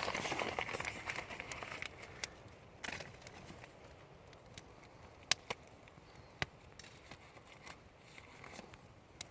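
Wood campfire burning, crackling with scattered sharp pops, the loudest about five and six and a half seconds in. A rushing hiss in the first two seconds dies down.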